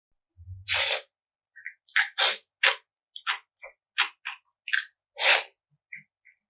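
Close-miked eating sounds of spicy mixed noodles: two long, loud slurps, about a second in and about five seconds in, with short crisp chewing and biting sounds between them.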